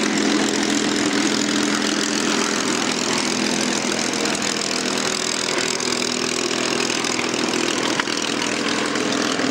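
P-51 Mustang's Packard Merlin V12 engine idling steadily on the ground, its propeller turning.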